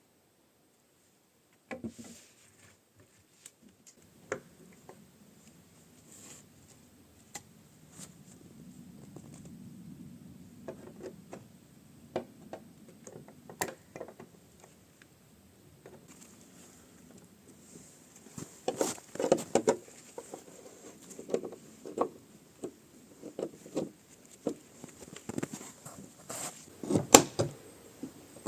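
Irregular knocks, taps and clunks of hand work with tools and wood in a small room, beginning about two seconds in, sparse at first and busier and louder near the end.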